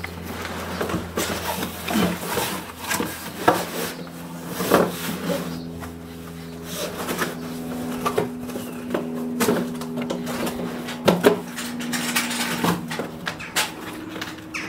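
Handling noises as plastic sheeting and fittings are worked by hand: irregular rustles, clicks and knocks, over a steady low hum.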